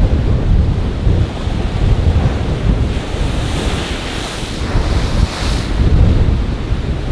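Strong wind rumbling on the microphone over rough surf. About three seconds in, a wave breaks close by and its spray hisses for about two seconds.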